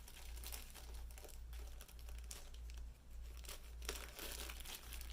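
Plastic packaging crinkling faintly as the packets of a diamond painting kit are handled, over a steady low hum.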